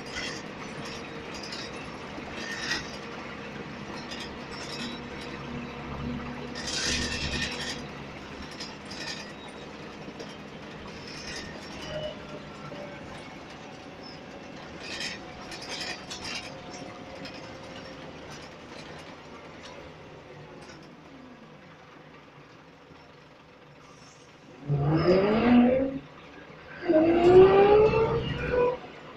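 A Scania Floline single-decker bus heard from inside the saloon, with low engine noise and scattered rattles while it stands. Near the end the engine note rises loudly twice as the bus pulls away, with a short break between the two rises for a gear change.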